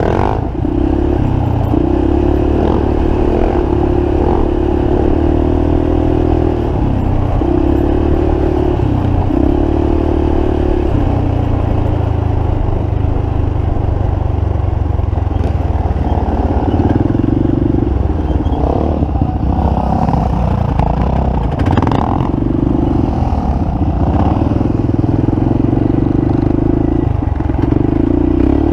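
Quad (ATV) engine running under way on a trail. Its pitch holds steady for a few seconds at a time, then shifts up or down with throttle and gear changes.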